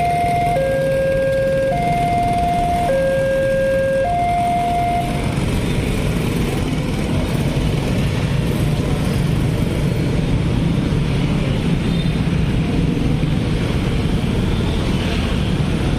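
Railway level-crossing warning alarm from a horn loudspeaker on the signal post, sounding two alternating electronic notes, low then high, about once a second each, and stopping about five seconds in as the crossing clears. Then a steady hum of many motorcycle engines as the waiting traffic moves off across the tracks.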